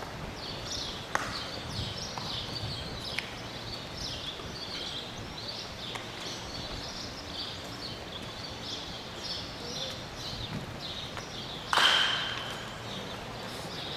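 Birds chirp steadily over the field, and two sharp smacks come early on. About 12 seconds in, a bat hits a ball with a loud crack that rings on briefly.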